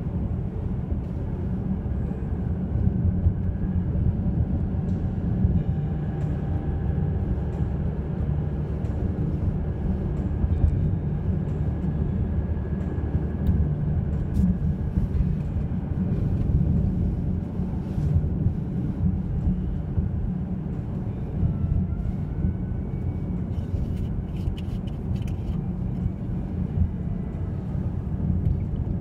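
Steady low rumble of a vehicle in motion, with a few faint clicks and rattles.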